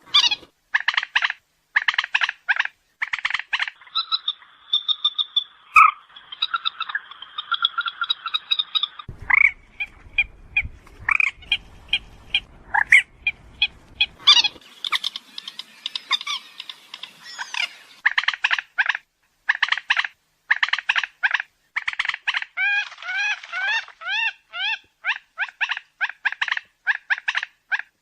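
Common moorhen calls played as a lure call: rapid croaking clucks in repeated bursts, with some longer drawn notes a few seconds in and a chattering run of bent notes near the end.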